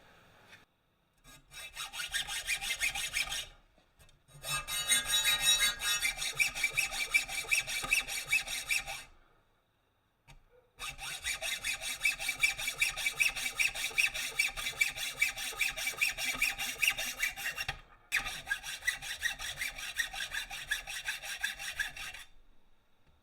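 Rapid, rhythmic rasping strokes on steel, in four stretches with short breaks between, the metal ringing faintly with each stroke.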